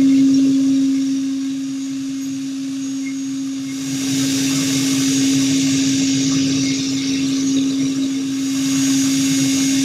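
5-axis CNC machining centre milling, with a steady hum-like tone from the spindle under a hiss of cutting. The hiss eases off briefly and grows louder again about four seconds in.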